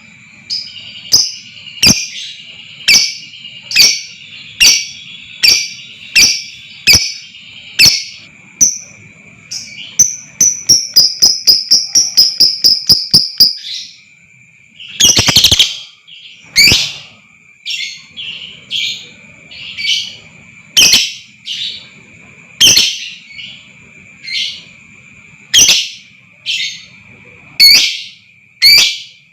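Lovebird calling: sharp chirps about once a second, then a fast chattering run of chirps in the middle, a loud harsh screech a little after halfway, and more spaced chirps to close. A steady thin high tone sits underneath.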